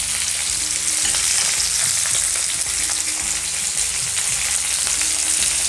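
Onion, green chilies, crushed ginger-garlic and freshly added tomato sizzling in hot oil in a pan, with a steady hiss while being stirred.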